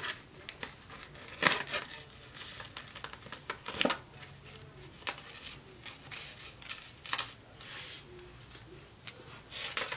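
Hands handling a necklace's card and its plastic packaging: scattered rustles and light clicks, a few of them sharper, about a second and a half in, near four seconds, around seven seconds and near the end.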